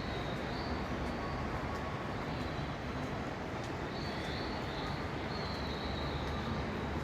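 Indoor rainforest ambience: a steady rushing background noise with high, slightly falling bird calls a few times, once right at the start and twice more in the second half.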